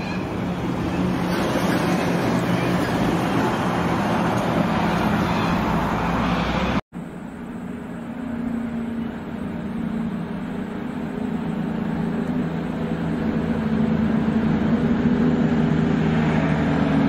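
Heavy cab-over diesel truck engine running as it approaches along a street. About seven seconds in there is a sudden cut, and then another truck's diesel engine is heard growing steadily louder as it approaches around a bend.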